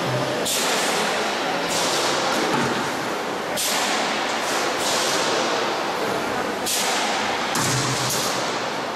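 Steady loud machinery noise of a transformer radiator panel press line, with six sharp bursts of hiss that start suddenly and fade away, one every second or two.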